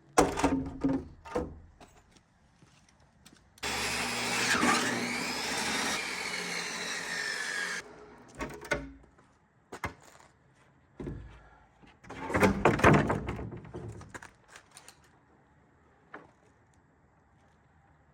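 Building-site work sounds: a few sharp knocks, then a handheld power tool runs for about four seconds, its whine dipping and recovering as it cuts, followed by more knocks and a loud clatter of wood or tools.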